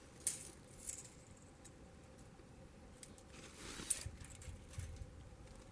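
Faint clicks and light metallic rattling of a retractable tape measure being pulled out and handled, with sharp clicks about a third of a second in, about a second in, and a louder one near four seconds.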